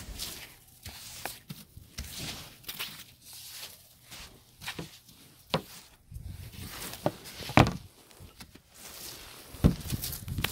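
Snow brush sweeping snow off a car's windshield: a run of short swishing strokes of the bristles through the snow, with a few sharp knocks, the loudest about two-thirds of the way through.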